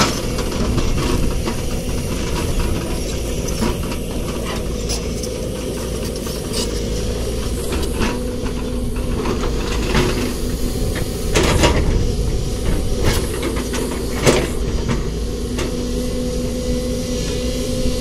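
JCB tracked excavator's diesel engine and hydraulics running steadily under load as it works a load of earth into a tipper truck, with a steady hum throughout. Several sharp knocks and clanks, the loudest a little past halfway.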